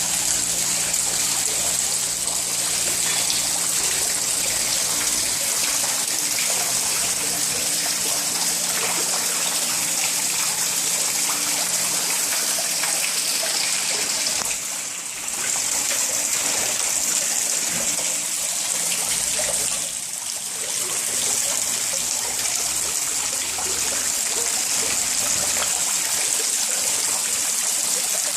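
Water falling steadily over a waterfall, a continuous rushing that drops briefly twice, about halfway through and about two-thirds of the way in.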